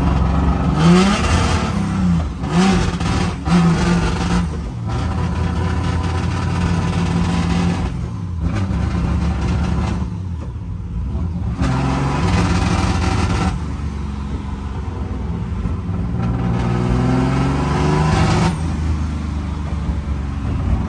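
Turbocharged V8 engine of an E36 BMW drift car heard from inside its stripped cabin while driving: the revs climb and drop in several quick pulls in the first few seconds, settle into steadier running, then climb again near the end.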